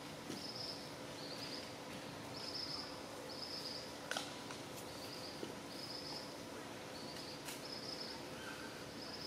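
An insect chirping over and over in short high-pitched buzzy bursts, about one to two a second, over steady outdoor background noise. A few sharp clicks stand out, the loudest about four seconds in.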